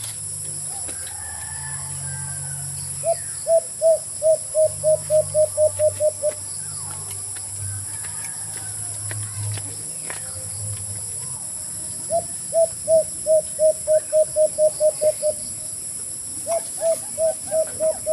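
White-eared brown dove calling: three runs of about a dozen short hoo notes each, every run speeding up toward its end.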